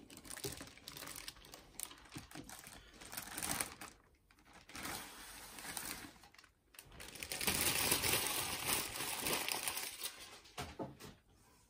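Thin clear plastic wrapping crinkling and rustling as it is handled and pulled off a suitcase record player, with scattered small clicks. The crinkling comes in spells, loudest over a few seconds past the middle.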